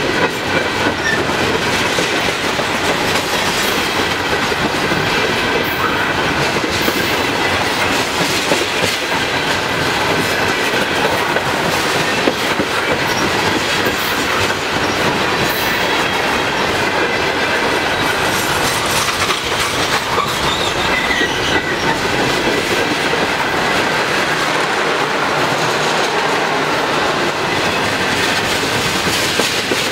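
Loaded open hopper cars of a freight train rolling past close by: a steady, loud rumble and clatter of steel wheels on the rails.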